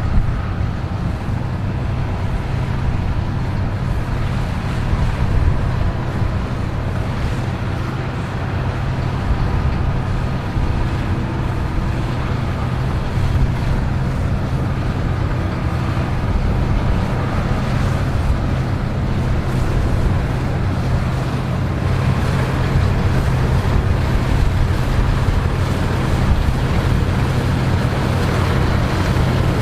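Combine harvester working a wheat field, running steadily: a constant low engine drone under an even wash of threshing and machinery noise.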